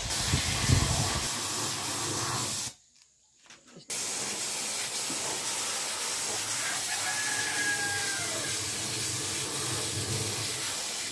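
A steady hiss, like spray or an air jet, that cuts out briefly about three seconds in and then resumes.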